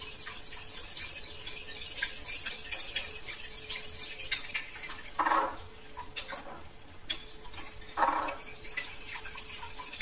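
A metal spoon stirring a foamy, soapy liquid in a glass bowl, with many small clinks of the spoon against the glass. There are two brief louder sounds, about five and eight seconds in.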